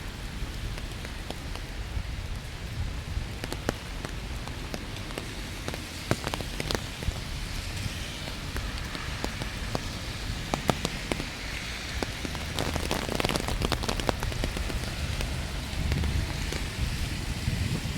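Steady rain falling, with many separate drops tapping close by. A low rumble swells briefly near the end.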